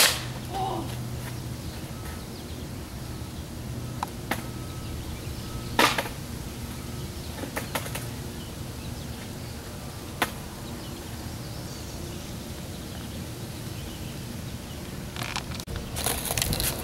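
Skateboard clacking on concrete: one loud sharp clack at the start, then single clacks of the board's tail and wheels every few seconds over a steady low hum. A louder rustling noise comes in near the end.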